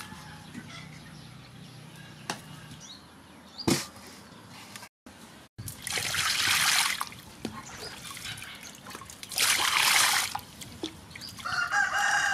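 Water pouring and splashing over a whole fish as it is rinsed by hand in a stainless steel bowl, in two loud bursts about three seconds apart. Before that, a few sharp knocks of a cleaver on a wooden chopping board.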